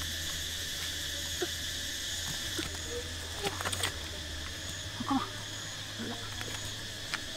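Insects shrilling in a steady, high, even buzz, with a higher chirp pulsing about once a second above it. Scattered small clicks and taps come through now and then.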